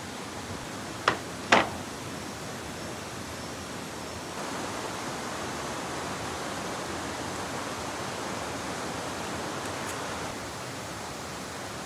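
A steady rural hiss with two sharp knocks a little over a second in, about half a second apart. The background grows slightly louder about four seconds in.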